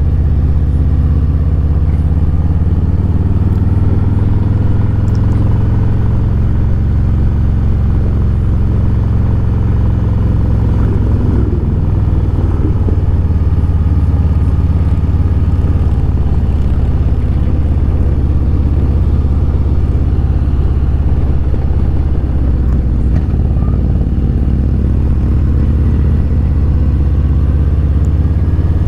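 Harley-Davidson Road Glide's V-twin engine running steadily while the bike cruises uphill, picked up by a camera mounted on the handlebars. It is a deep, even drone whose pitch drifts gently up and down with the throttle.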